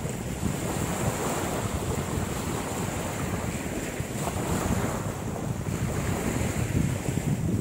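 Wind buffeting the microphone over waves washing on the shore, a steady rushing noise with a thin high whine behind it.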